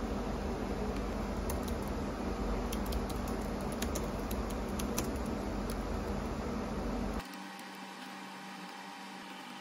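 Typing on a computer keyboard: scattered key clicks over a steady low hum. About seven seconds in, the hum drops away and the sound becomes quieter.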